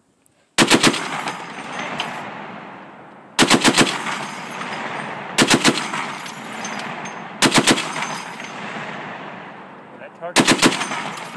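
M2 .50-calibre heavy machine gun on a HMMWV turret mount firing five short bursts of about three to five rounds each, spaced roughly two to three seconds apart. Each burst is followed by a long rolling echo that dies away before the next.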